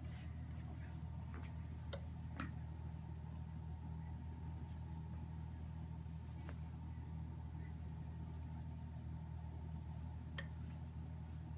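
Steady low hum of an LCD frame-separator machine's built-in vacuum pump running while a screen is held on its heated plate, with a few faint clicks.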